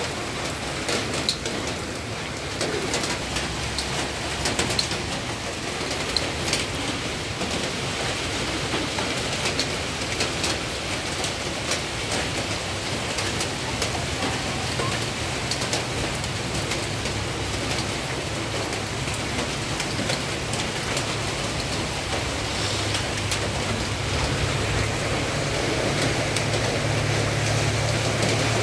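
Heavy rain falling steadily, with many individual drops pattering and splashing. Over the second half, a low vehicle engine hum builds and is loudest near the end.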